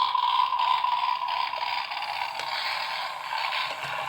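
A small motor running with a steady whir that holds one pitch.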